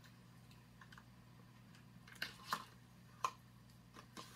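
A few faint clicks and rustles of a small cosmetic item and its packaging being handled, over a steady low hum.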